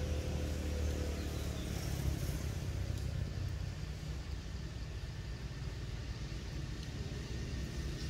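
Steady low outdoor rumble, with no distinct events.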